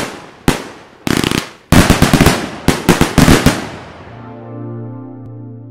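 Aerial fireworks going off: a few sharp bangs, then clusters of rapid crackling pops. The crackling fades out about four seconds in, and a sustained synthesizer chord takes over.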